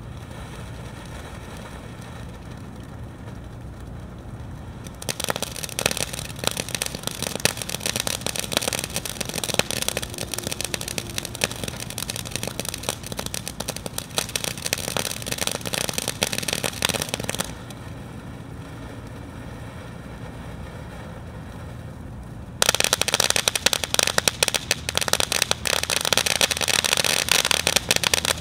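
Consumer ground fountain firework spraying sparks, with a steady hiss for the first five seconds. Dense crackling then sets in for about twelve seconds, falls back to the quieter hiss for about five seconds, and returns loudest near the end.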